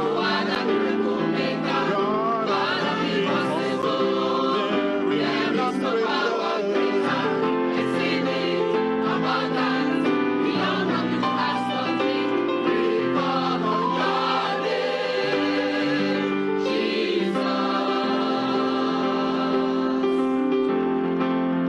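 A mixed choir of men and women singing a gospel song together, with the words "We need a miracle, you are the miracle-maker, beyond what we could ask or think".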